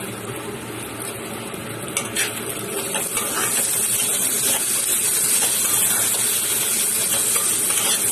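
Bitter gourd, onion and tomato sizzling in oil in a wok as a flat metal spatula stirs and scrapes through them, with short knocks of the spatula on the pan. The sizzle grows louder about three seconds in.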